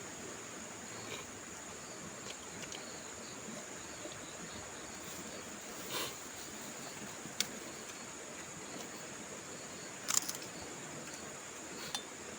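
Steady high-pitched insect chirring outdoors, with a few sharp clicks and knocks, a small cluster of them about ten seconds in.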